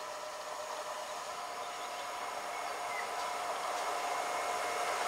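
An approaching Class 186 electric locomotive with a container train: a steady whine of several high tones over an even hiss of wheels on rail, growing gradually louder.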